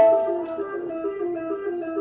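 Music with a plucked, guitar-like melody stepping between notes; a loud held note rings out and fades over the first half second.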